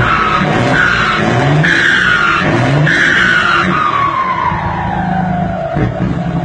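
Turbocharged Mercedes-Benz truck diesel running under load, its engine note rising in repeated sweeps. Over it is a loud turbo whistle from a comb fitted in the turbocharger intake, a mod made to make it whistle. The whistle comes in short rising bursts, then winds down in one long falling whine past the middle.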